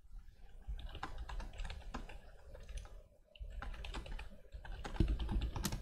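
Typing on a computer keyboard: two runs of rapid key clicks with a short pause just past three seconds in, the last few keystrokes the loudest.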